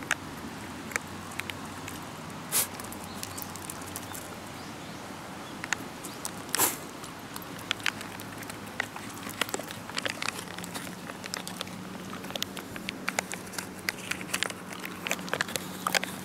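Shiba Inu dogs shifting about on concrete: scattered clicks and taps of claws and paws, with two sharper clicks early on and quicker, busier ticking in the second half.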